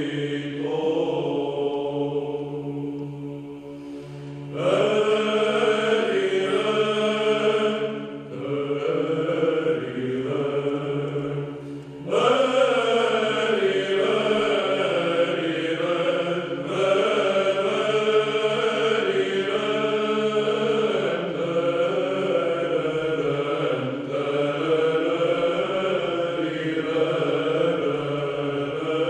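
Male choir singing Byzantine chant a cappella: a moving melody over a steady held drone (ison). The voices come in louder about four and a half seconds in and again about twelve seconds in.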